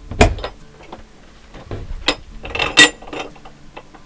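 Metal parts of a removable RV TV wall mount knocking and clinking as the TV and its bracket are handled and lifted off the wall plate. There is a knock near the start, a few more around the middle, and the loudest is a ringing metallic clink near the end.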